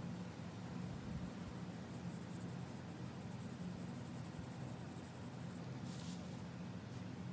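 Colored pencil scratching softly on paper as a drawing is shaded, over a steady low hum. About six seconds in there is a brief rustle as the pencil lifts and the paper is shifted.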